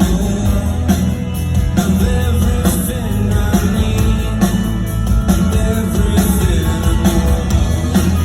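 Live rock band playing a song, with electric guitars, bass and drums; the music is loud and continuous with a heavy bass.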